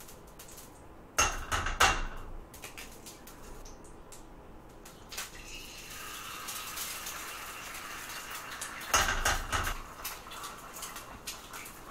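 Eggs cracked against a frying pan, with a cluster of metal knocks and clinks about a second in and again near the end. Eggs frying in the pan, with a steady sizzle from about halfway.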